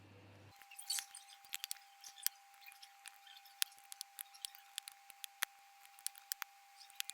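Faint computer keyboard keystrokes, irregular single clicks and short runs, as code is typed. A faint steady tone sits underneath from about half a second in.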